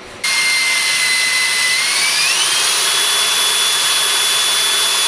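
A handheld electric power tool running in one long, loud whine over a hiss. Its pitch climbs about two seconds in and then holds steady.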